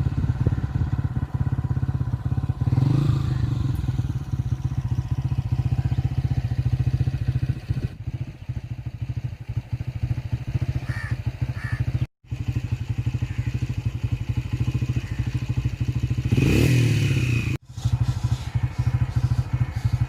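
A small engine running steadily with an even pulsing beat, rising in pitch briefly about three seconds in and again near the end. The sound drops out abruptly twice, for a moment each time.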